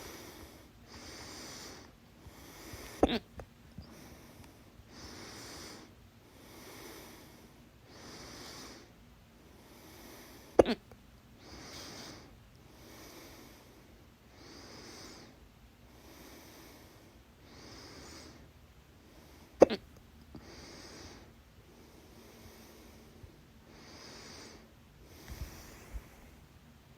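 A woman's loud hiccups: three sharp, sudden hiccups spaced several seconds apart, with steady audible breathing in between, about one breath every second and a half.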